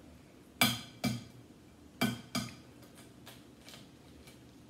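Hard tableware knocking and clinking at the table: sharp taps with a short ring, mostly in pairs about half a second apart, then lighter ticks in the second half.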